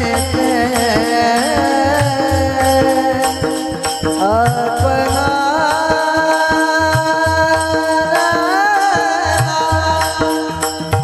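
Marathi devotional bhajan singing: a drawn-out, sliding vocal melody over steady held accompanying notes, with repeated hand-drum strokes underneath.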